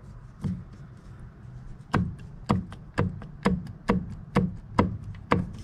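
Short metallic clacks, about two a second, as a worn balance shaft is rocked back and forth in the balance shaft and oil pump assembly of an Audi 2.0T engine. The knocking comes from excess play at a badly worn bearing point.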